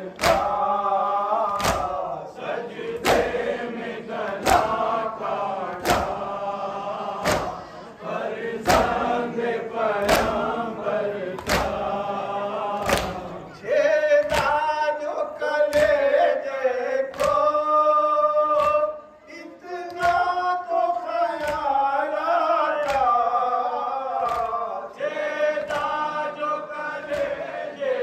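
Men's voices chanting a nauha, a Shia Muharram lament, together, over sharp hand strikes on the chest (matam) about every three-quarters of a second. In the second half the strikes come slower and softer while the chant holds longer notes.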